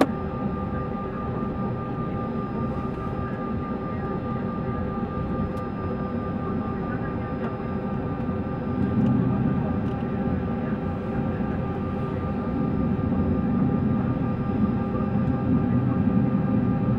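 McDonnell Douglas MD-83 jet airliner taxiing, heard from the cockpit: a steady hum of its rear-mounted Pratt & Whitney JT8D engines at low power with a few fixed tones over a low rumble. The rumble swells slightly about nine seconds in and again near the end.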